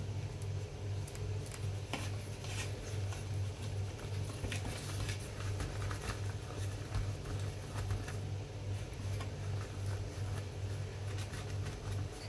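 A steady low hum that pulses slightly, with soft scattered rustling and light clicks as banana leaves are handled and folded around grated cassava filling.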